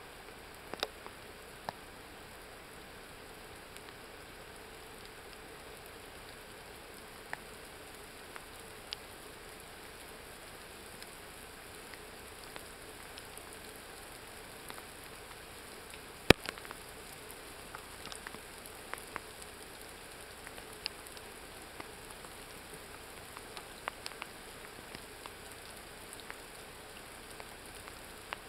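Light thunderstorm rain: scattered raindrop taps over a steady faint hiss. The taps come more often in the second half, with one sharp, louder tap about halfway through.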